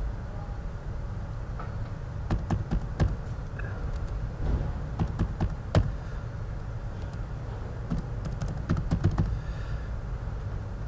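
Typing on a computer keyboard: irregular keystrokes in short runs, with pauses between them, over a steady low hum.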